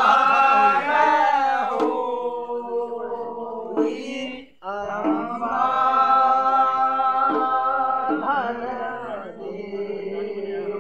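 Voices singing a Holi song in long held notes, chant-like, with a short break about four seconds in before the singing resumes.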